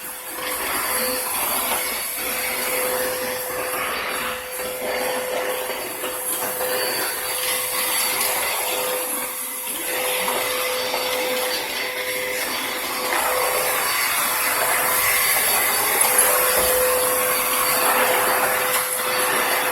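Vacuum cleaner running, a steady whine over a rushing hiss that swells and eases a little.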